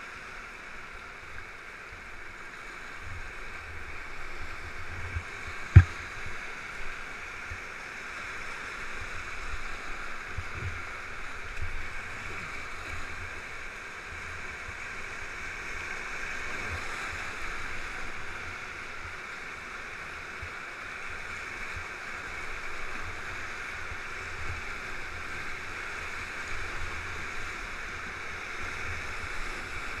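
Whitewater rapids rushing steadily around an open canoe. A single sharp knock about six seconds in is the loudest sound.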